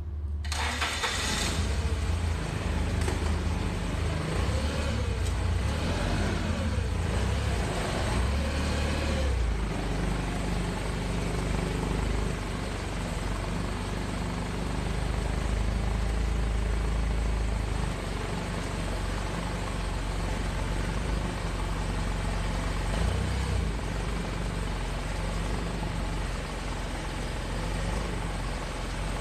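Toyota forklift's engine starting just after the beginning, then running steadily with some rising and falling revs as it drives and lifts its load.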